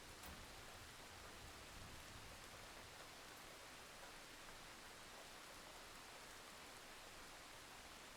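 Steady rain falling, a faint, even hiss with no distinct drops or thunderclaps.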